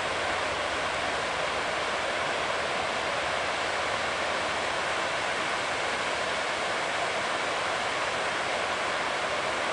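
Freight train boxcars rolling past: a steady, even rush of steel wheels on rails, with no distinct engine note or wheel clicks.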